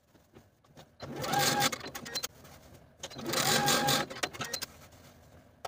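Electric sewing machine running in two short bursts of about a second each, with a short pause between: a steady motor whine over a fast run of needle ticks as it bastes through denim chambray.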